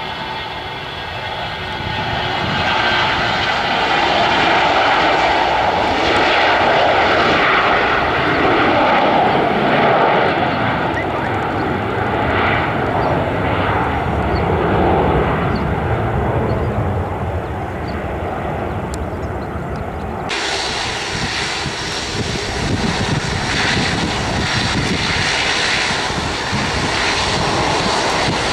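Bombardier Global Express business jet's two Rolls-Royce BR710 turbofans at takeoff power as it rolls and climbs away. The sound is a loud steady jet noise with a thin whine in it at first. About two-thirds of the way through it cuts to the engines of a second Global Express running on the runway.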